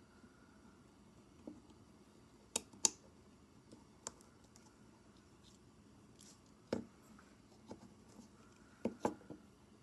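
Scattered sharp clicks and light taps of small plastic parts from a car power window switch being taken apart, irregularly spaced: a close pair about two and a half seconds in, single clicks later, and a quick run of three near the end.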